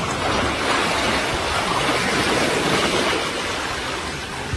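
A loud, steady rushing noise that builds over the first two seconds or so and then eases a little.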